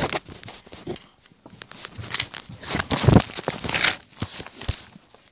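Rustling, crackling handling noise with scattered knocks and clicks from a handheld camera being covered and moved about, loudest about three seconds in.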